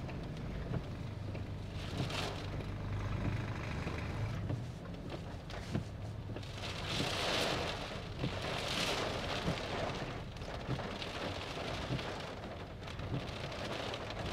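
Rain falling on a car, heard from inside the cabin while driving on a flooded street: a steady hiss with scattered drop ticks over a low engine and road hum. Two louder swells of water hiss come about seven and nine seconds in, as tyres run through standing water.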